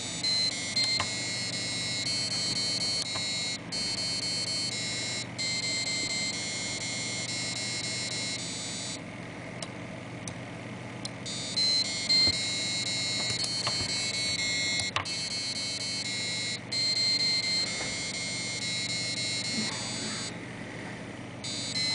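Buzzers driven by an 8051 microcontroller playing a simple nursery-tune melody as a run of steady, high beeping notes, stopping for about two seconds near the middle and for a second near the end. A few sharp clicks come from the board's push buttons being pressed.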